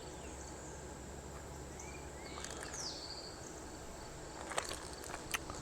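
Faint outdoor ambience: a steady drone of insects, a few short bird chirps in the middle, and two light clicks near the end from the lure's packaging being handled.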